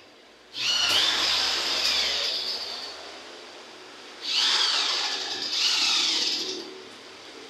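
Hand-held power tool motor whirring in three bursts: a long one of about two seconds, then two shorter ones back to back near the end.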